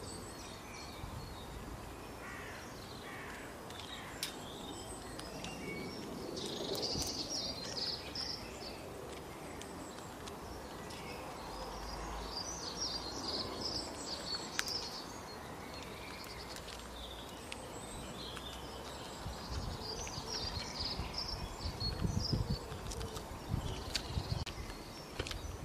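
Outdoor ambience of small birds singing in short clusters of high chirps every few seconds over a steady background hiss, with a few low thumps near the end.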